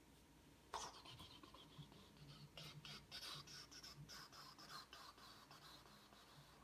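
Dry-erase marker writing on a whiteboard: a run of faint, quick scratchy strokes that starts about a second in and stops shortly before the end.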